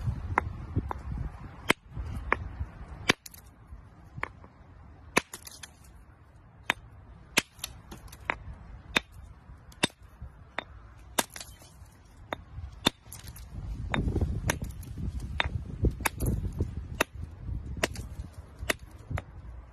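A steel rock hammer tapping again and again on a stone nodule holding an ammonite, sharp clicks roughly every half-second, cracking the nodule open along its seam.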